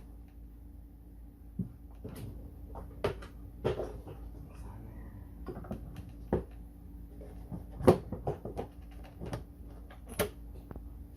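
Scattered, irregular clicks and knocks of parts being handled and slid onto the axle of a kids' ride-on toy truck, with one louder knock near the end, over a faint steady low hum.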